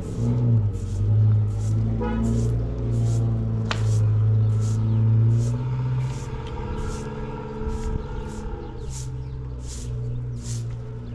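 Background music: sustained low notes under a steady high ticking beat, about two beats a second.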